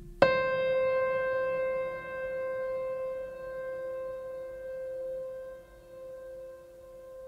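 Background music: a bell-like note struck about a quarter second in, ringing on with clear steady overtones and slowly fading.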